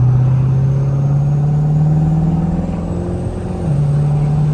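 Twin-turbocharged 5.7 Hemi V8 in a Dodge Charger pulling at part throttle, its engine note slowly rising in pitch. It eases off briefly about three seconds in and then pulls again, with a faint high whistle climbing above the engine.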